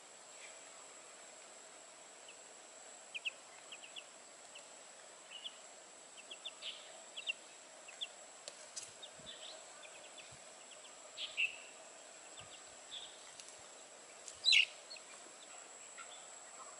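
Outdoor ambience of birds chirping in short, scattered bursts over a steady hiss and a faint steady high tone, with one louder, falling call about fourteen and a half seconds in.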